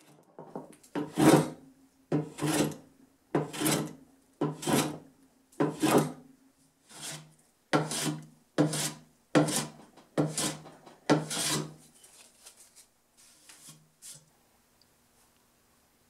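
Metal hand plane shaving a pear wood blank: about ten full strokes roughly a second apart, then a few lighter strokes near the end.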